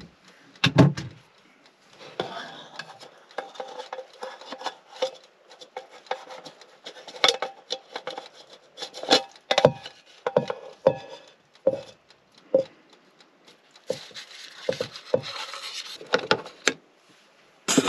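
Metal tongs clacking and scraping against a pot and a plate as food is dished up, with irregular clicks and knocks of cookware and stretches of scraping.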